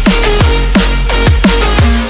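Background electronic dance music with a heavy bass line: a fast beat of deep bass hits that drop in pitch, about three a second, under a busy synth texture.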